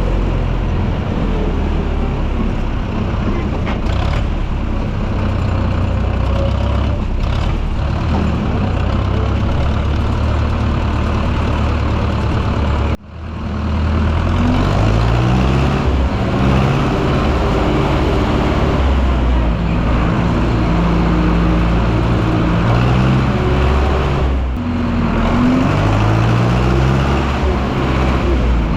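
Zetor tractor diesel engine running loudly, working hard. About 13 seconds in the sound breaks off abruptly for an instant, and after that the engine pitch rises and falls again and again as it is revved.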